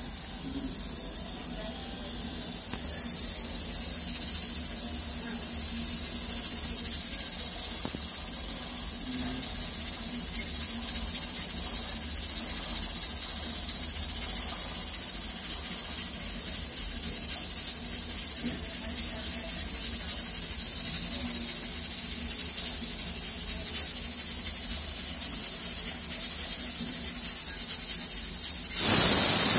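Pressure cooker on a gas flame hissing steadily as steam escapes past its whistle weight while pressure builds. The hiss grows louder about three seconds in and jumps sharply louder near the end.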